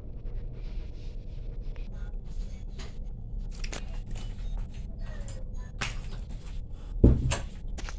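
Rustling and crackling as a bunch of malunggay (moringa) leaves is handled over a plastic basin, with a steady low hum underneath. A heavy thump comes about seven seconds in.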